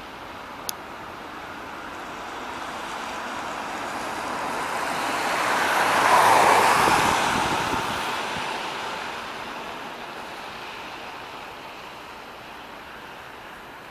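Road and tyre noise heard aboard a VMZ-6215 articulated trolleybus, swelling to a loud peak about six seconds in and fading away. A single sharp click comes near the start.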